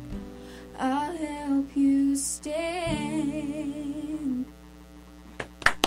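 A female voice hums the closing notes of a song, holding wavering notes over sustained acoustic guitar. The music fades out, and hand claps begin near the end.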